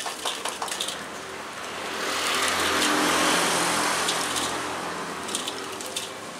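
Grasshoppers dropped into a wok of hot cooking oil, setting off a sizzle that swells over a couple of seconds and then dies down, with a few sharp clicks near the start and again later.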